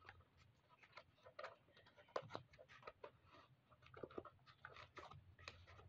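Near silence, with scattered faint clicks and short rustles of handling.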